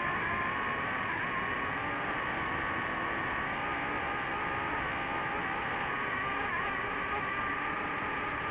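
DJI FPV drone's motors and propellers whining steadily in flight, with several held tones that waver slightly as the motor speed is adjusted, including a small wobble near the end.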